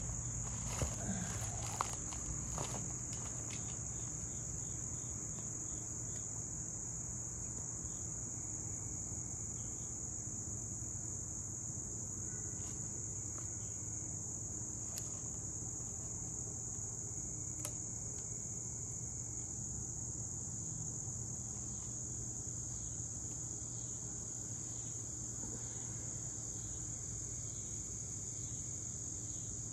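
Steady, high-pitched chorus of insects, with a few light clicks in the first couple of seconds.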